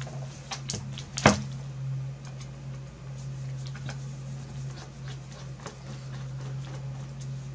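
Clicks and knocks of a screwdriver and a graphics card being handled, with one louder knock about a second in as the card is turned over and set down, then faint scattered ticks as the front-plate screws are undone. A steady low hum runs underneath.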